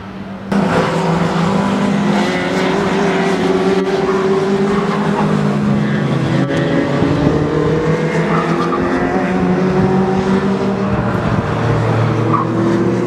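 Funyo sports-prototype race cars running hard on the circuit, their engine notes rising and falling as they accelerate and lift through the corners, with more than one car heard at once. The sound jumps suddenly louder about half a second in.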